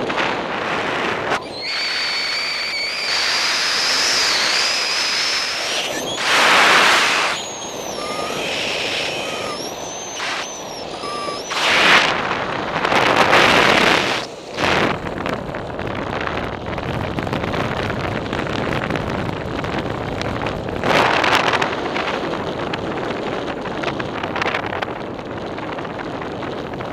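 Airflow rushing over the microphone in paraglider flight, a steady roar of wind noise that swells in several louder gusts. A thin high tone wavers above it for several seconds in the first half.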